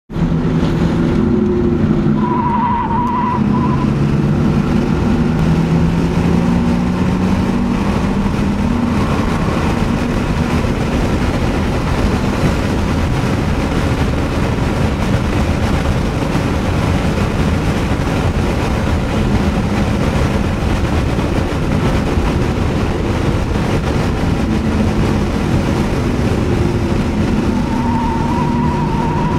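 Audi S4 engine heard from inside the cabin while being driven hard on a race track, over steady wind and tyre noise. The engine note climbs as the car accelerates a couple of seconds in and again near the end. A short wavering squeal comes about two seconds in and again near the end.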